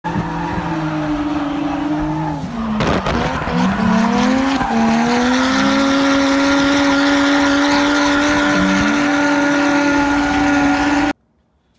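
Drift car engine at steady revs with tyres squealing, the revs dipping briefly twice in the first few seconds before holding; the sound cuts off abruptly near the end.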